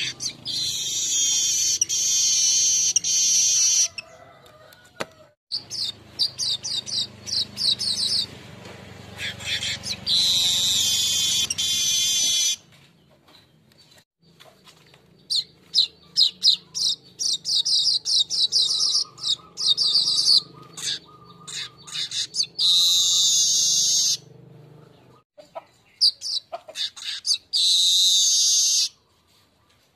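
Golden-headed manyar weaver singing: bursts of rapid, high, chattering trills a few seconds long, broken by short pauses filled with scattered quick ticks.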